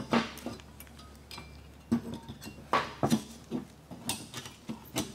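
Irregular metallic clicks and clinks as new brake pads are pushed and worked into the spring-steel abutment clips of a front brake caliper bracket, the pads stubborn to seat.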